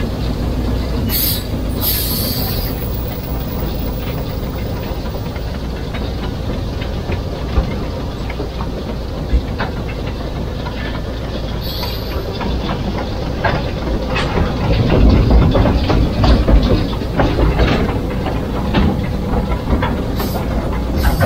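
Tjepper No. 5, a 1914 Arnold Jung steam locomotive, running along the line, heard from its footplate: a steady rumble with rattling and clattering knocks from the wheels and cab. Short high hisses come a few times, and it gets louder in the last third.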